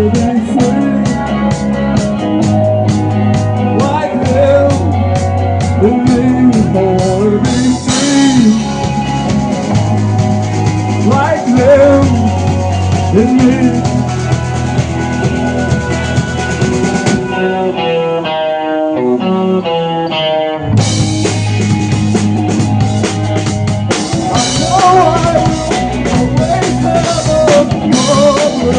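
Live rock band playing an instrumental break: drum kit and bass under a guitar lead with bending notes. About seventeen seconds in, the drums stop for a few seconds under a descending run, then the full band comes back in.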